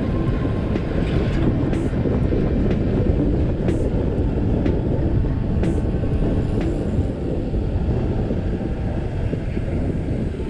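Steady rumbling rush of wind on the microphone of a road bike riding at speed, with a few faint clicks.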